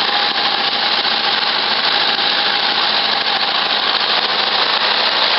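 Volkswagen Beetle's air-cooled flat-four engine running loud and steady.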